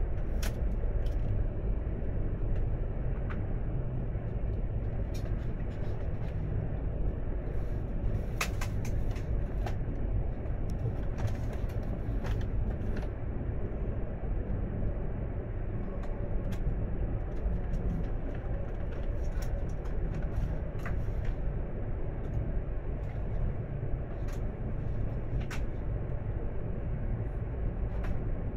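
Steady low rumble of a Tohoku Shinkansen train heard from inside the passenger cabin as it runs slowly alongside the terminal platform, coming in to stop. Many short, sharp clicks and squeaks are scattered through it, thickest around the middle.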